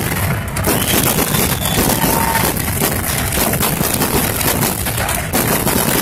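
Aerial fireworks going off one after another: dense crackling and popping with bangs packed close together, without a break.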